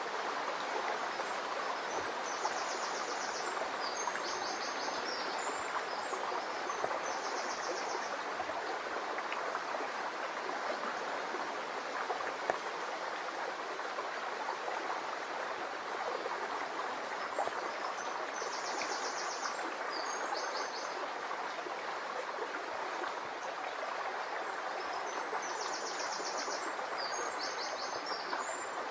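Shallow brook babbling steadily over stones and pebbles. A small songbird sings a high, rapid trilling phrase three times: near the start, about two-thirds through and toward the end.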